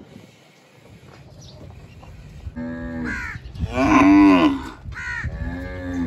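Zebu cattle mooing: several drawn-out calls starting about two and a half seconds in, the loudest about four seconds in, its pitch rising and then falling. Crows cawing in short, higher calls between them.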